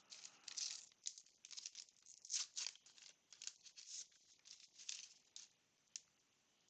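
Faint crinkling and tearing of a baseball card pack wrapper being opened, with the cards inside rustling as they are handled: a quick, uneven run of short, soft, high rustles.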